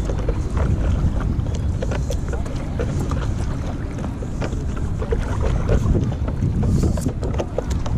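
Wind buffeting the microphone over water splashing and lapping against a paddle board, with many small clicks and knocks.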